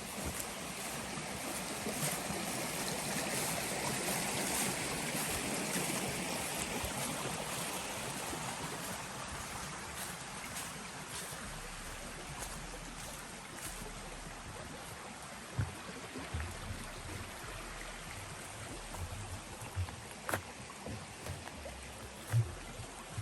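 Rushing creek water, a steady wash that swells over the first few seconds, then eases off. Soft low thumps come now and then in the second half.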